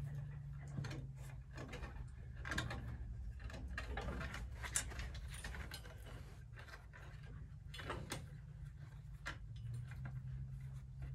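Scattered metallic clicks and knocks as hands work the fittings on a steel livestock headlock gate, over a low steady rumble.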